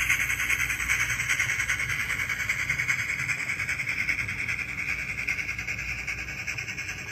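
Sound decoder of a Bachmann HO scale three-truck Shay model locomotive playing rapid, even steam exhaust chuffs through its small speaker, fading as the locomotive moves away.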